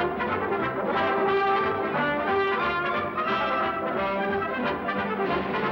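Orchestral cartoon score with brass prominent, playing a busy, continuous passage of many overlapping notes.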